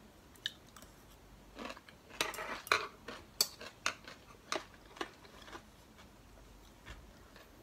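Eating at the table: a metal spoon and chopsticks clicking lightly against a ceramic soup bowl, about a dozen scattered clicks with short eating noises between them, busiest a second or two in.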